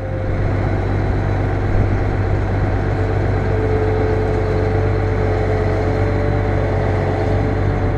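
A Case IH 2388 combine's diesel engine runs steadily as the machine drives slowly, under test on its newly installed Mud Hog four-wheel-drive axle. A low, even hum carries a steady higher whine.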